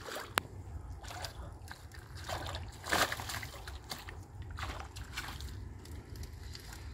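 Water sloshing and splashing in irregular bursts as a cast net is hauled in by hand at the water's edge, the loudest splash about three seconds in, with a sharp click just after the start. A steady low rumble runs underneath.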